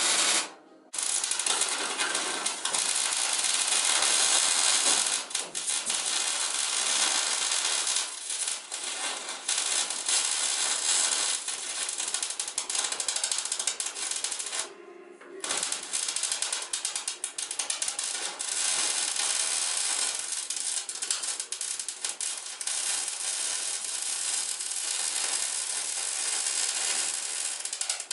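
MIG welder arc crackling steadily while steel floor frames are welded in. It stops briefly just after the start and again for about a second around the middle.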